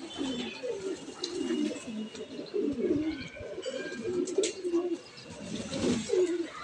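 Domestic pigeons cooing, several birds overlapping in a continuous warbling murmur, with a few sharp splashes and wing flaps from birds bathing in a shallow pan of water, the loudest about four seconds in and near the end.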